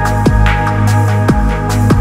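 Downtempo electronic chillout music: held synth tones over a deep bass, with a punchy kick drum that drops in pitch and crisp hits on the high end.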